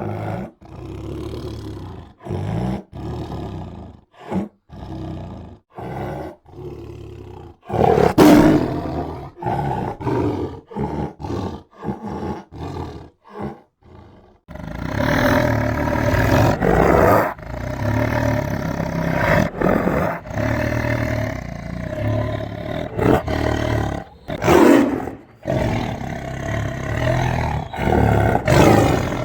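Tiger roaring and growling: a run of short growls about once a second, the loudest about 8 s in, then from about halfway a longer, almost unbroken stretch of roaring with a few louder roars near the end.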